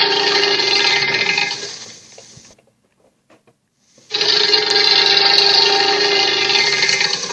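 Giant-creature sound-effect call, a long steady cry of many layered pitches that fades out around two seconds in, followed by a second long call starting about four seconds in and fading near the end.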